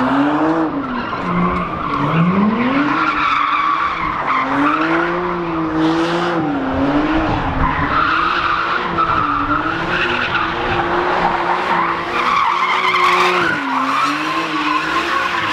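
A car spinning donuts: tyres screeching without a break while the engine is held at high revs, its pitch rising and falling again and again with the throttle.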